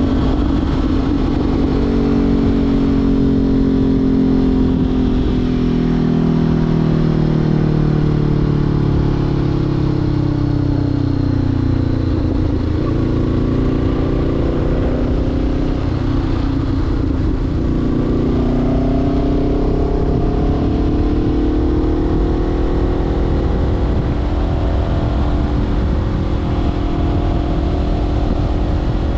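Honda CBR500R's parallel-twin engine heard through a LeoVince LV-10 slip-on exhaust while riding. The revs fall steadily for about the first twelve seconds, hold low for a few seconds, then climb again as the bike accelerates.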